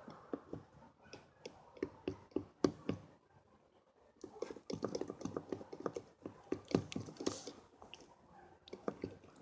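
Slime mixture of glue and activator being stirred with a mixing tool in a container, making irregular wet clicks and taps as it thickens. They come in two bouts, with a short pause about three seconds in.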